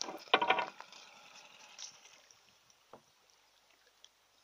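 A wooden pole knocking against the hull of a canoe: a short wooden clatter about half a second in, then a single faint click near three seconds.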